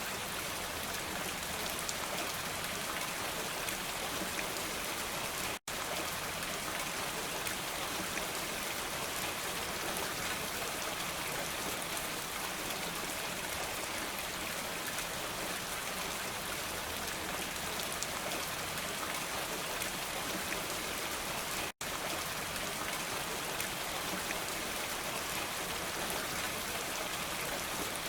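Steady, heavy rain: a dense, even patter of drops. The sound cuts out for an instant twice, about five seconds in and again a little past the middle.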